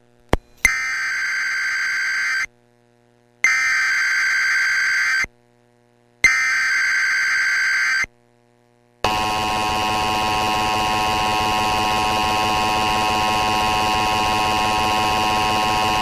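Emergency Alert System test signal: three SAME digital header bursts, each about two seconds long with a second of silence between them, encoding a Required Monthly Test. About nine seconds in, the steady two-tone EAS attention signal starts and holds.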